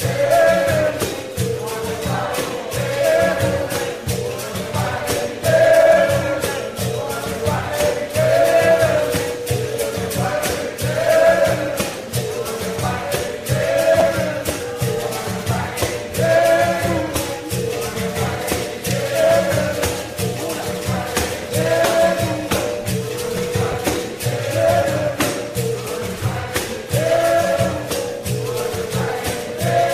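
Capoeira song: a chorus sings a short phrase over and over, about every two and a half seconds, over steady hand percussion with a tambourine jingle and a held drone tone.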